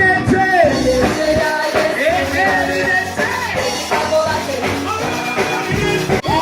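Background song with a singing voice over band instruments.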